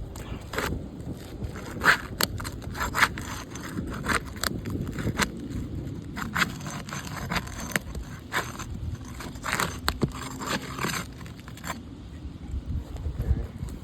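An asphalt roof shingle being broken loose from its sealant bond, a run of irregular scrapes, crackles and sharp clicks as the bond tears. The shingle's mat tears away with it, so the shingle is left unrepairable.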